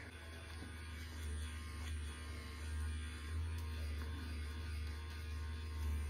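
A steady low hum with a faint hiss above it, swelling slightly now and then.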